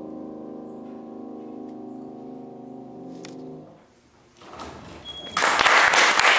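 Grand piano's final chord ringing and slowly fading, then damped off after about three and a half seconds. After a brief hush the audience starts applauding, swelling to full applause near the end.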